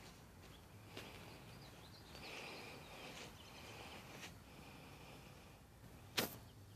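Faint outdoor background with high chirping, likely distant birds, from about two seconds in. A light click comes about a second in and a sharp, louder click near the end.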